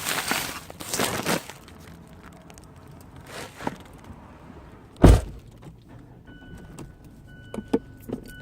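Scattered knocks and handling noises, then a loud low thump about five seconds in, followed by a steady electronic beep that sounds on and off.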